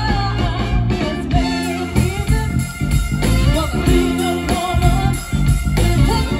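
Live band playing through a PA system: a woman singing into a microphone over amplified guitar and a steady beat.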